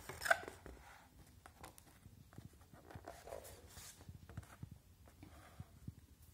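Faint rustling and small taps of a cardboard pop-up picture book being handled and its page turned, with one louder tap just after the start.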